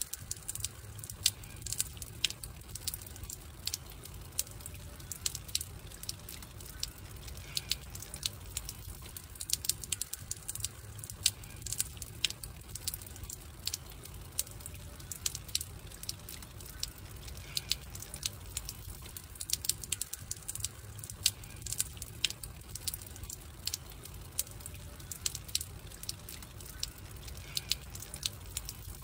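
Wood campfire crackling and popping: irregular sharp snaps over a low, steady rumble of the burning fire.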